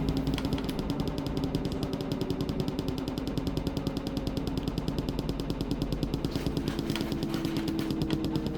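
Washing machine running, with a fast, regular rattling pulse over a low motor hum.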